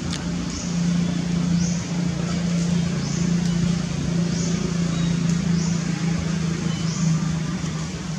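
Steady low engine-like hum of a distant motor, with a short high chirp repeating about once a second over it.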